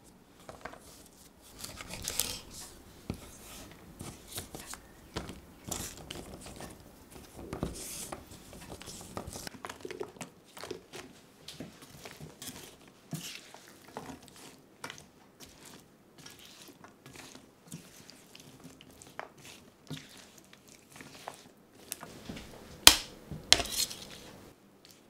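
Kitchen handling sounds. Green beans are snapped and trimmed on a wooden board, then stirred among tomatoes and potatoes in a steel frying pan with a metal utensil, giving a run of irregular scrapes and light clinks. Near the end, metal tongs clatter sharply against a metal tray as they pick up chicken breasts; these are the loudest sounds.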